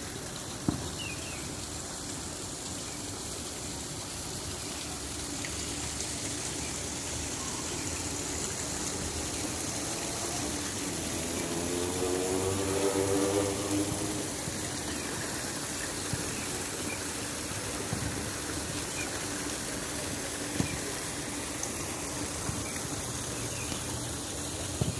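Steady rushing noise, like flowing water, with a pitched hum that swells and fades about halfway through, and a few faint clicks.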